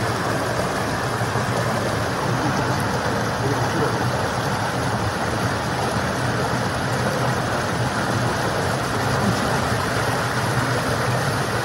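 Steady rush of a small waterfall cascading over rocks into a stream pool.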